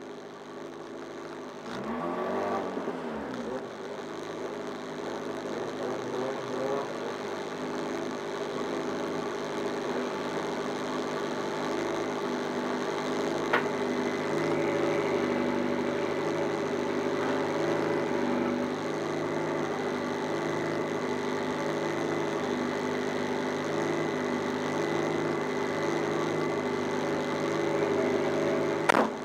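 Fiat Uno Turbo race car's engine catching about two seconds in, then idling with the car stationary, the idle pulsing unevenly. A sharp knock near the end.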